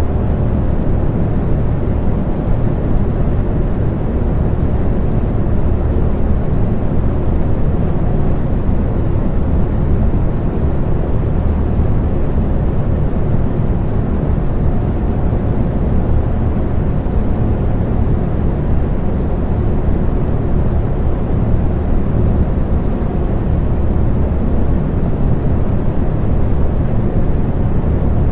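Electric fan running steadily: a continuous low whoosh of moving air, heaviest in the bass, with a faint steady hum.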